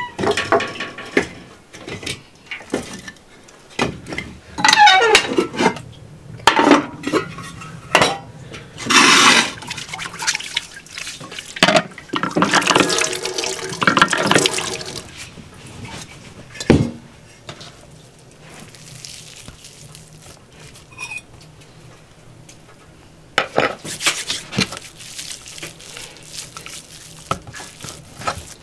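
Water from a washstand's tank running and splashing into an enamel basin as hands are washed, among clinks and knocks of kitchen handling.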